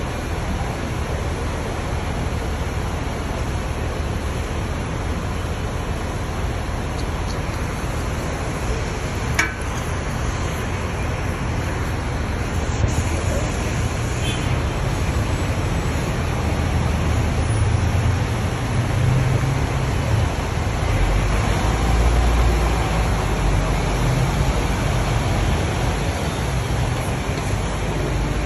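Buses running at a bus interchange: a steady low engine rumble with traffic-like hiss, growing louder and deeper past the middle. A single sharp click about a third of the way in.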